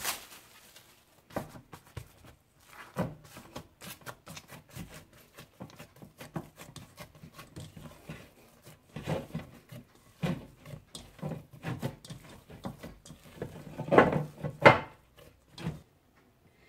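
Oiled hands punching down and kneading risen yeast dough to knock the air out of it: irregular soft slaps and knocks, with two louder thumps near the end.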